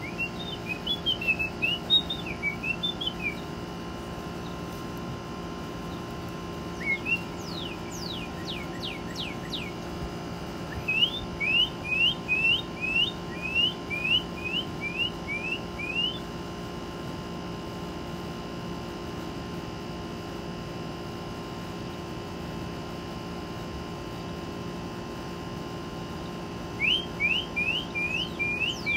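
Whistling back and forth with a northern cardinal: bursts of clear slurred whistles, with steep falling notes. About a dozen quick rising whistles come in a run near the middle, and a shorter run of rising whistles comes near the end.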